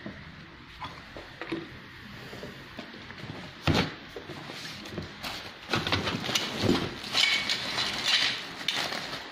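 Knocks and clunks from an industrial sewing machine head and its table being handled, with one loud knock about four seconds in and a busier run of knocks and rustling over the last few seconds.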